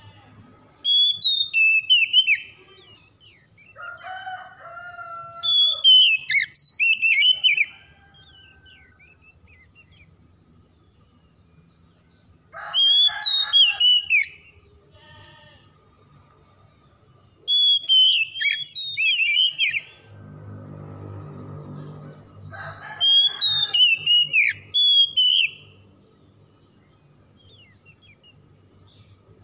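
Oriental magpie-robin singing loud, rapid whistled phrases of a few seconds each, about five of them, broken by short pauses. A low rushing noise comes in about two-thirds of the way through.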